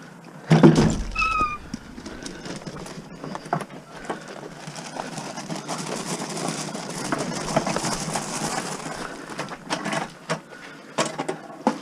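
Scrap metal being handled and moved: a loud clank with a brief metallic ring about half a second in, then rattling and scraping with scattered clicks, and a few sharper knocks near the end.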